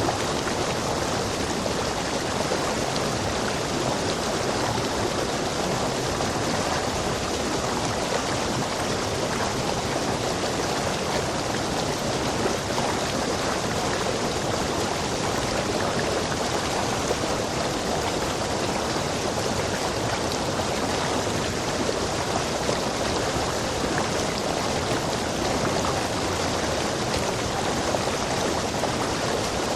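Rainforest stream with water rushing over rocks, a steady, unbroken rush that does not change.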